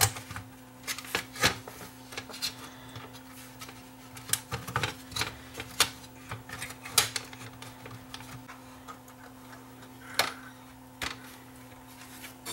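Irregular clicks and taps of plastic and sheet-metal parts being handled, as a DVD player's plastic loader mechanism is fitted back into its steel chassis, over a faint steady hum.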